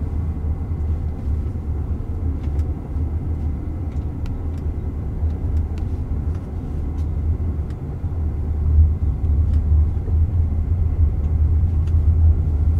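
Steady low road and tyre rumble inside the cabin of a Waymo Jaguar I-PACE electric SUV as it drives, with no engine note, growing a little louder after the middle.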